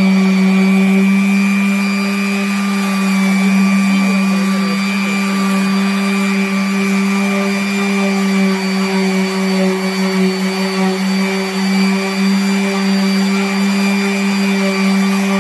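Electric random orbital sander running steadily with its pad flat on a cured resin tabletop. It makes a constant hum that holds one pitch throughout, with a light scratchy hiss from the sanding.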